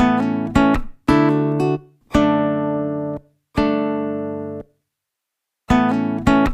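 Background music: guitar chords, each one struck and left to ring down, then cut to silence before the next. There are five or six chords, with a longer pause about two thirds of the way in.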